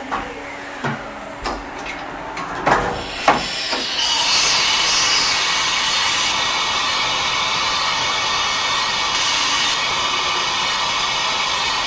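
Fadal CNC vertical machining center running its program: a few clunks and quick whirring glides as it changes tools and starts the spindle, then from about four seconds in a steady loud hiss as the spindle runs and the cutter works the part.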